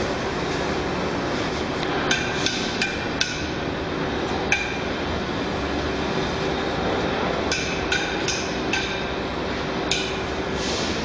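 Sharp metallic clinks in irregular clusters over a steady rolling rumble and hum: metal scraps snapping onto a cart-style magnetic sweeper as it is pushed along.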